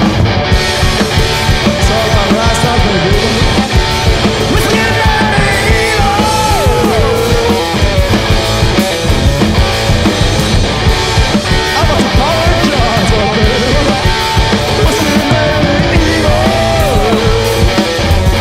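Live garage-punk band playing loud: distorted electric guitar and drums, with a lead line that bends up and down in pitch a few times.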